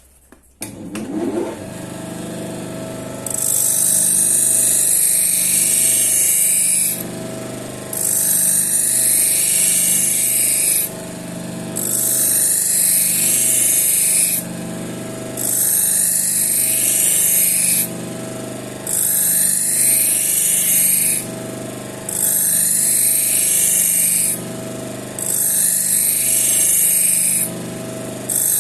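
Grinder spinning a paper finishing wheel loaded with chromium oxide: the motor starts up about a second in and runs steadily, while a knife blade is drawn across the wheel in eight passes, each a loud hiss of a few seconds with short breaks between. These are finishing passes that strip the burr (foil) from the edge, done without coolant.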